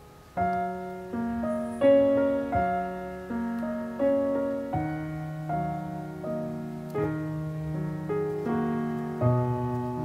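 Background piano music: a slow, gentle melody of single notes and chords, a new note struck about every three-quarters of a second, starting just after the beginning.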